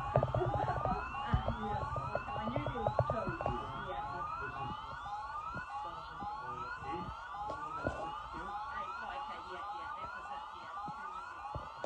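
Tsunami warning siren sounding a fast repeating whoop: a rising sweep about two and a half times a second, with no pause. There is some rumble and a few knocks over the first few seconds.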